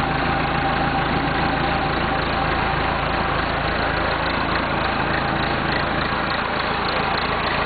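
Diesel engine of a 1976 Massey Ferguson 50D backhoe idling steadily.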